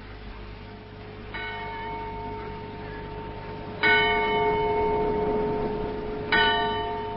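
A bell tolling three times, about two and a half seconds apart, each stroke ringing on and fading under the next.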